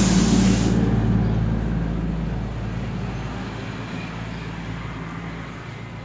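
A steady low engine-like hum with a deep rumble, fading slowly. A loud hiss rides on top at first and stops under a second in.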